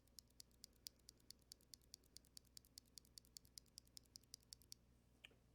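Gazzew U4T tactile mechanical keyboard switches, springs lubed at the bottom, being pressed over and over: a quick, even run of faint clicks about five a second, which stops a little before the end.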